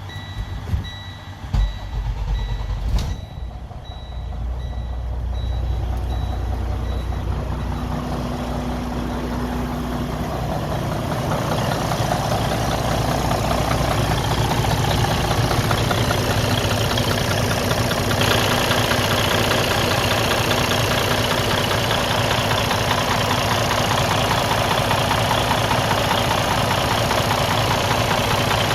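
Detroit DD15 diesel in a Freightliner Cascadia cranking and starting about three seconds in, after a repeating electronic beep, then running steadily. Its knocking noise is taken to be a sign of a broken internal engine part.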